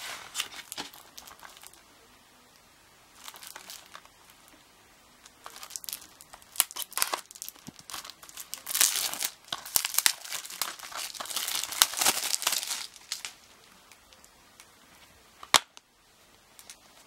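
Plastic packaging on a Blu-ray case crinkling and tearing in irregular bursts as it is pulled off and crumpled, loudest in the middle. About two seconds before the end there is one sharp plastic click as the case snaps open.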